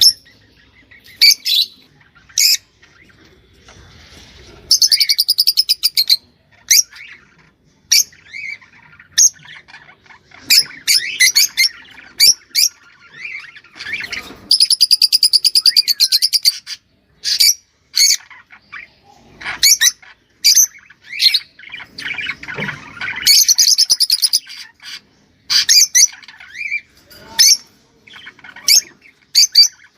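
A pet songbird singing a training song: quick chirps and whistled notes broken by three long, rapid rattling trills, about five, fourteen and twenty-three seconds in.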